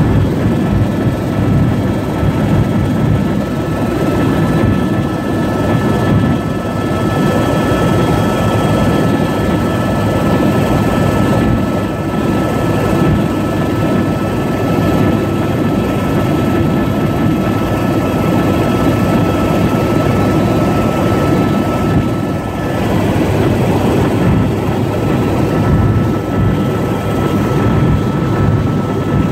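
Helicopter in flight heard from inside the cabin: a loud, steady rotor and engine rumble with a thin, steady high whine above it.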